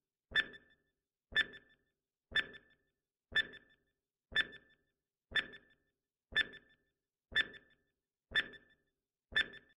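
Countdown timer tick sound effect: a sharp clock-like tick once a second, ten in all, each with a short bright ring.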